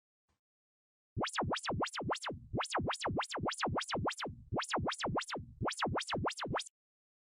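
Synthesized electronic tone sweeping rapidly up and down across almost the whole range of pitch, about four sweeps a second. It starts about a second in and stops abruptly near the end.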